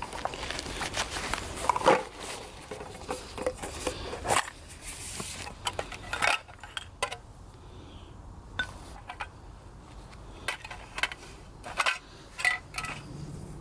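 Fire steel clinking against flint: irregular sharp metallic strikes and clicks, with rustling handling noise in the first few seconds.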